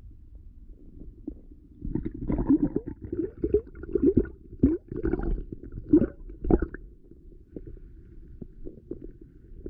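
Muffled water sloshing and gurgling heard through an underwater camera housing in a shallow stream: a low steady rumble, with a cluster of louder burbling splashes from about two to seven seconds in.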